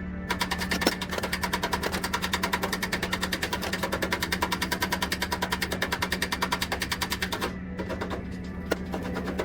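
Fast, even clicking, about ten clicks a second, over a steady hum, breaking off briefly near the end and then resuming.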